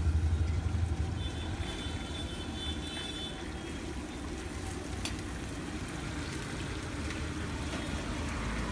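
Steady low street background rumble, like passing traffic. A faint high whine starts about a second in and lasts about two seconds, and there is a single sharp click about five seconds in.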